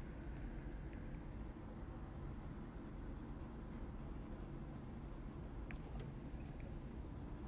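Faint scratching of a Polychromos coloured pencil shading kraft card, with a couple of light clicks about six seconds in.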